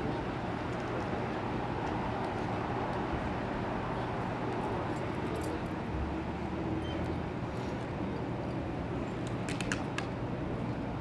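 Steady night-street background noise with a constant low hum. A few sharp clicks come near the end.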